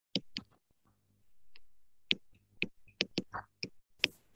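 A stylus pen tapping and clicking on a tablet while handwriting, giving a series of sharp, irregularly spaced clicks.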